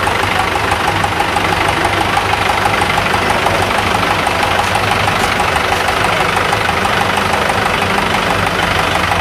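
A farm tractor's diesel engine running steadily at idle.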